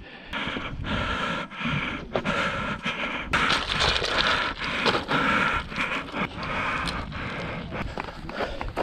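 A runner breathing hard and fast, panting in and out over and over while scrambling uphill over boulders. Shoes scrape and knock on the rocks between breaths.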